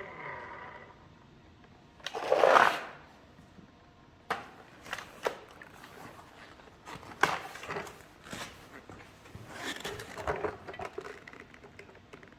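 A cordless vacuum cleaner's motor winding down to a stop, then a short rustle and a scattering of light clicks and knocks as it is handled.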